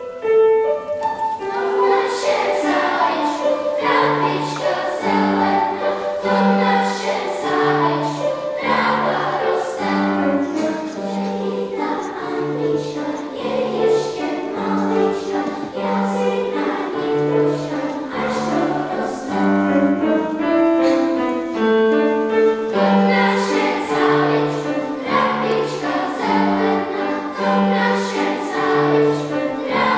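Children's choir singing in Czech with grand piano accompaniment.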